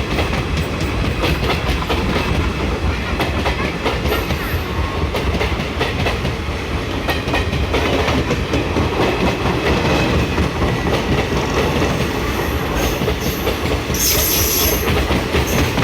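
Indian Railways express train running through a station at speed: a steady loud rumble of coaches with rapid clicking of wheels over rail joints. A brief high-pitched screech sounds near the end.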